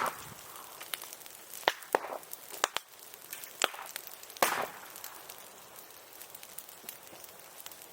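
Bonfire burning green bamboo and branches: sharp cracks and pops, about seven, scattered over the first five seconds, with the loudest ones followed by a short hiss, over a faint crackle.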